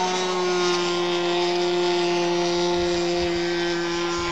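Propeller-driven radio-controlled model airplane flying overhead, its motor and propeller holding a steady pitch. Some low rumble comes in near the end.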